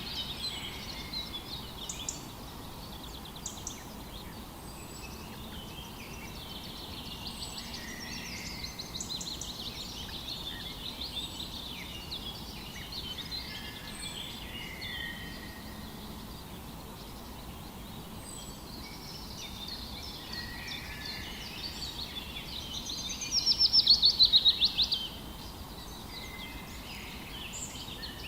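Several birds singing and calling over one another, mixed chirps, trills and short whistles, with a faint high note repeated every couple of seconds. About 23 seconds in, one bird gives a loud rapid trill lasting about two seconds.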